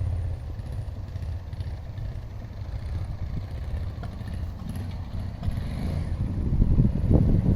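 A 1989 Suzuki VX800's V-twin engine running at a low, pulsing idle. It grows louder near the end. The rear cylinder is misfiring.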